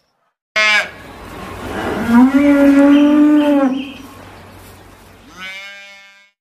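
A calf mooing: a short call, then one long moo that rises slightly and holds, and a shorter call near the end.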